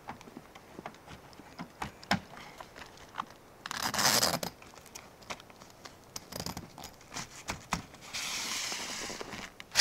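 Fabric soft topper on a pickup bed being handled at the tailgate: scattered clicks and rustles, with a loud rasp about four seconds in and a longer, steadier rasp about eight seconds in, then a sharp knock right at the end.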